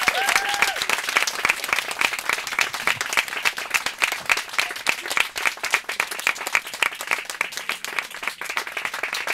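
Audience applauding after a song: many hands clapping in a dense, steady patter that fades a little toward the end, with a short shout from one voice just after it starts.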